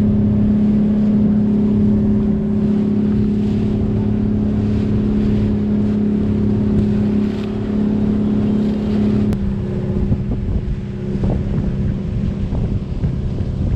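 Pump boat (bangka) engine running steadily at cruising speed with a loud, even drone. About nine seconds in the sound changes abruptly: the engine becomes less prominent and wind buffets the microphone.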